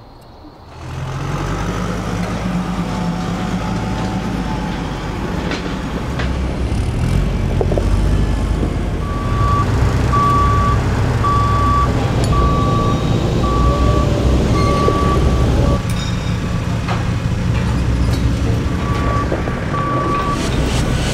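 Cat telehandler's diesel engine running, coming in about a second in, with a reversing alarm beeping about once a second through the middle and again near the end. A few sharp metal clanks are heard over it.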